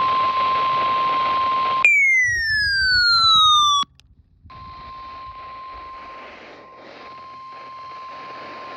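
Weather radio warning alarm, a steady single tone of about 1 kHz over radio static. About two seconds in it is broken by a loud electronic tone that slides down in pitch for two seconds and stops abruptly. After a short gap the steady alarm tone and static resume, quieter.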